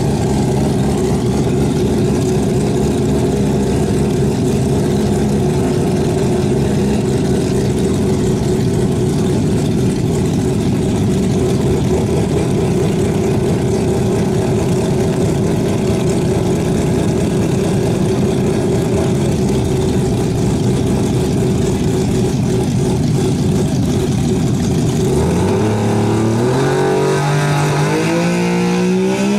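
Mazda RX-7 drag car's 20B rotary engine idling steadily on the start line. About 25 seconds in, the revs climb in steps and keep rising as it is brought up for the launch.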